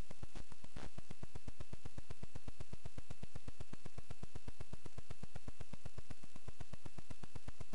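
Steady low electrical buzz pulsing about ten times a second, with a thin high whine and faint hiss above it; two faint clicks come under a second in.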